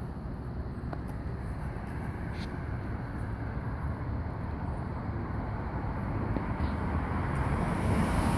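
Steady outdoor background rumble, mostly low in pitch, growing louder near the end.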